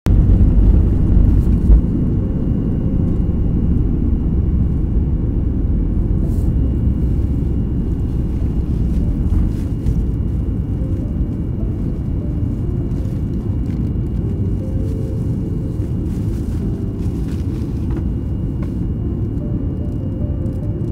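Airliner jet engines at takeoff thrust, heard from inside the cabin as a heavy, steady low rumble. It is loudest at first on the runway, with one sharp thump just under two seconds in, then settles to a slightly quieter, even drone as the plane climbs.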